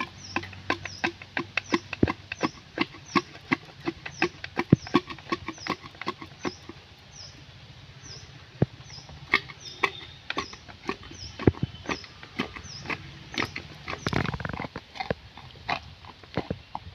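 Pestle pounding jujube (boroi) fruit and young jackfruit in a hollow bamboo-tube mortar: a quick run of knocks, about two to three a second, with a short pause about halfway through before the pounding resumes.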